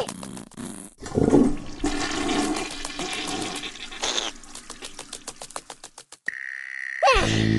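Cartoon sound effects: several seconds of noisy rushing with rapid crackling clicks and a couple of short gliding squeaks. Near the end a steady high tone comes in, followed by music.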